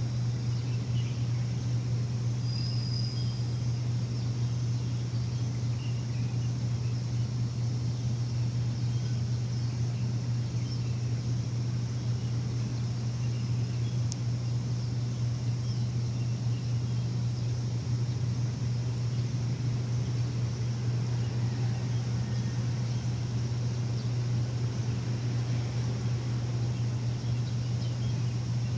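A machine running with a steady low hum that does not change, with a few faint bird chirps over it, one clearer whistle about three seconds in.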